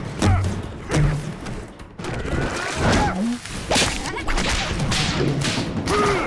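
Action sound effects of a whip fight: a whip swishing and cracking again and again, mixed with the thuds and whacks of blows, over a music score.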